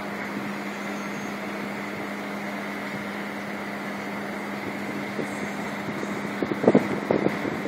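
Steady machinery hum with a constant low tone and a fainter high tone, like large ventilation or generator plant. Wind buffets the microphone about seven seconds in.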